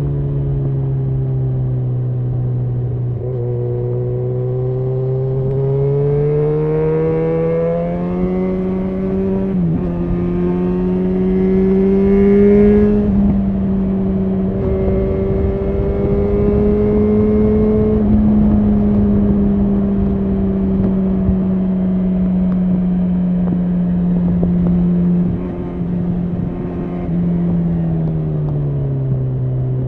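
Yamaha XJ6N's 600 cc inline-four running through a Shark Street GP full exhaust system, heard from the rider's position under way. The engine note climbs over the first ten seconds or so, holds steady under throttle, then falls in pitch near the end as the rider eases off.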